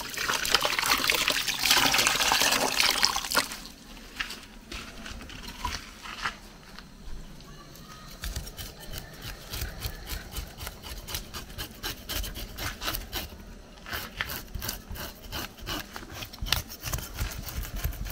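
Water running from an outdoor tap into a container, stopping about three and a half seconds in. After that comes a knife scraping the scales off croaker fish on a wooden cutting board, in quick, irregular scrapes and taps.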